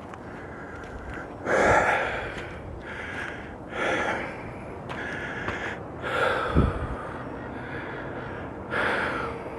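Heavy breathing of a person walking uphill: four loud breaths, about one every two and a half seconds, over a steady outdoor hiss, with a short low thump about six and a half seconds in.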